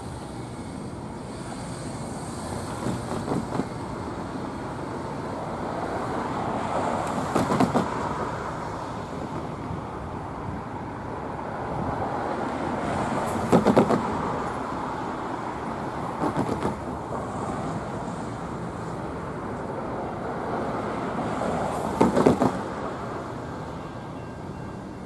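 Steady outdoor traffic noise, with five short clusters of sharp knocks or clatter spread through it.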